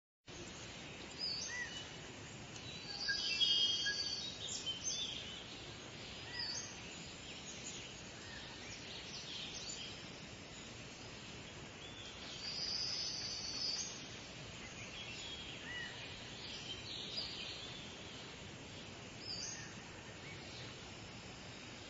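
Small birds chirping and twittering over a steady outdoor hiss, with busier bursts of chirping about three seconds in and again around thirteen seconds.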